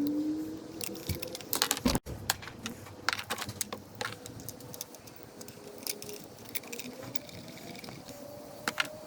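Scattered light clicks and small rattles, like hand tools and small parts being handled, with a faint wavering tone underneath.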